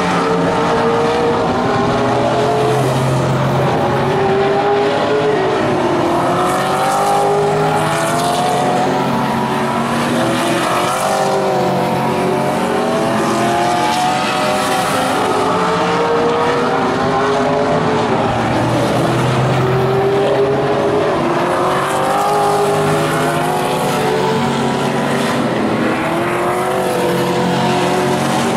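Vintage modified race car engines running at full race pace, their pitch rising and falling again and again as the cars accelerate down the straights and lift for the turns.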